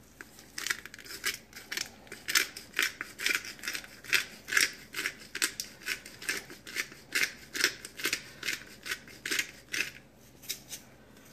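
Hand-twisted black pepper grinder grinding peppercorns: a rhythmic run of dry, crunching clicks, about three a second, that stops shortly before the end.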